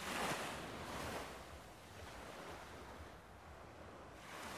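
Sea waves washing in: a soft, even rushing that swells and ebbs, rising again near the end.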